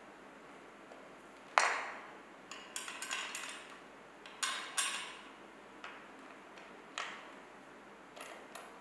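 Small metal parts, screws and an Allen wrench, clinking and tapping against a metal support bracket as the screws are fitted. There is one loud clink about a second and a half in, a quick run of clinks around three seconds, two more sharp ones near the middle, and lighter scattered ticks toward the end.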